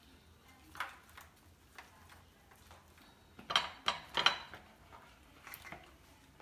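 Hands scooping herb butter from a small glass bowl and working it into a raw turkey: scattered light clicks and soft handling noises, with a few sharper clinks against the bowl a little past halfway.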